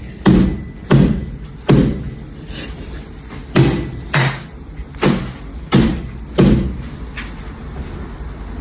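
A series of dull thuds or knocks, eight in all: three in the first two seconds, then, after a pause, five more at an even pace of about one every 0.7 seconds.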